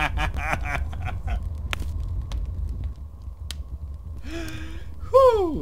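A character's cackling laugh trails off in the first second. Near the end come a short hoarse cry and a loud call that falls steeply in pitch, over a steady low hum.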